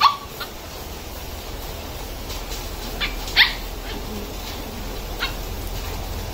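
Puppies play-fighting, giving short, sharp, high yelps: one at the very start, a faint one just after, a pair about three seconds in (the loudest), and one more a little after five seconds.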